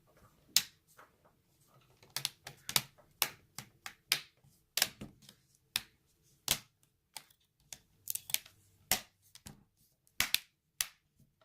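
Plastic snap clips of a laptop screen bezel clicking into place one after another as the bezel is pressed down around the display: about twenty sharp, irregular clicks.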